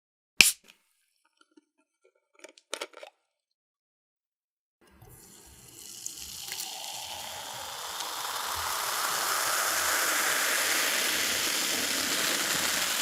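A sharp click and a few softer clicks, then, from about five seconds in, cola pouring and fizzing. The fizzing hiss builds for a few seconds and then holds steady.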